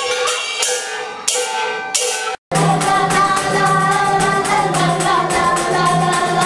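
Music with a steady beat of percussion strikes and pitched melody lines. It cuts out abruptly about two and a half seconds in, then resumes with singing voices over a low sustained tone.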